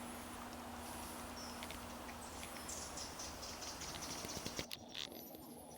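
Faint outdoor ambience: a steady soft hiss with a few distant high-pitched bird chirps and several light ticks in the second half.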